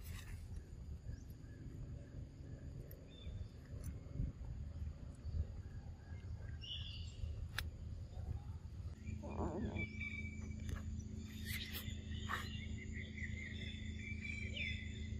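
Outdoor forest ambience: a steady low rumble with a few faint clicks. About nine seconds in, steady high tones and chirping animal calls join in.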